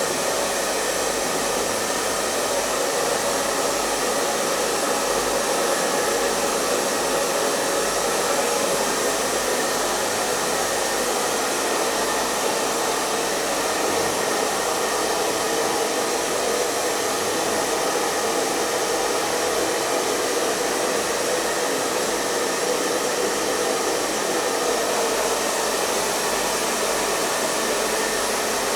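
Hair dryer running steadily: an even, unbroken rush of blown air and motor whir, with a faint steady hum under it.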